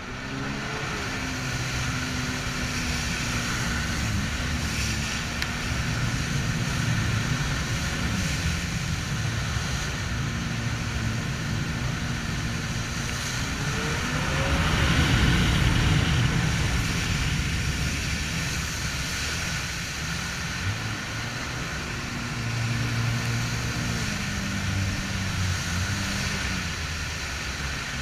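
Jet ski engine running at speed under a steady rush of noise. About halfway through, the engine pitch rises and the sound gets louder, then eases back.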